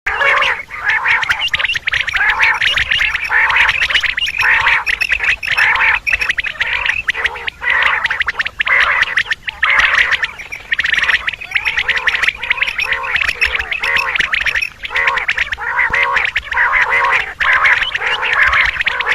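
Common quail calls, the hen quail calls played as a hunting lure to draw in males: a dense stream of short, repeated calls with no break.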